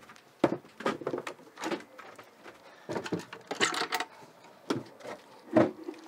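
A series of knocks and clicks from wooden cabin doors and their latches being handled and swung open, with a longer scraping rustle about three and a half seconds in.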